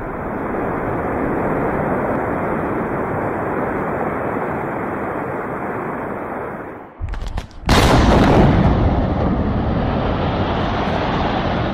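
Rock-blasting explosions. A long, steady rumble from a row of charges firing along a rock face, then, after a cut, a single sudden, loud blast a little over halfway in, followed by a rumble that slowly fades.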